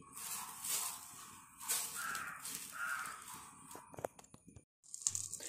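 A crow cawing twice in quick succession over a faint background hiss, with a few small clicks near the end.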